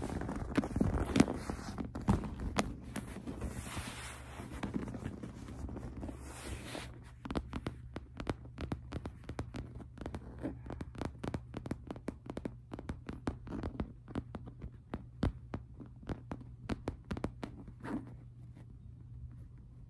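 Fingers handling a monogram-print leather purse: dense rustling and rubbing of the bag for the first several seconds, then a long run of quick fingertip taps and scratches on its surface, several a second. A steady low hum lies underneath.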